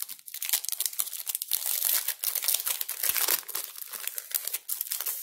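Foil wrapper of a Pokémon TCG booster pack crinkling and tearing as it is ripped open by hand, with continuous crackly rustling as the cards are worked out of it.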